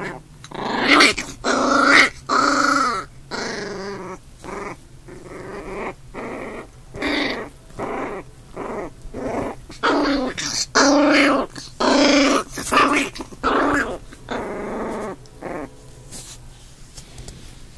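Two puppies growling at each other in rough play, a run of short growls about one a second.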